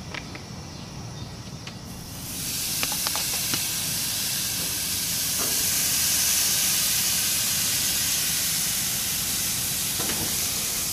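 Raw hamburger patties sizzling on hot gas-grill grates: a steady hiss that starts about two seconds in, as the patties go on.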